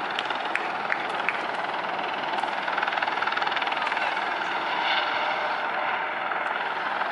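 Four Eurocopter EC120 Colibri helicopters passing overhead in formation at a distance, a steady rotor drone with fast blade chop that grows a little louder about three seconds in.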